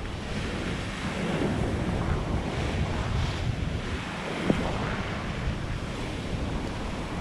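Surf breaking and washing against the rocks below, with wind buffeting the microphone. A single short sharp click about four and a half seconds in.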